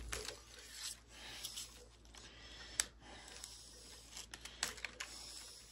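Faint rustling and light clicks of lacquered copper winding wire being pulled off a welder's transformer coil, with one sharper click about three seconds in and a few quick ticks near the end.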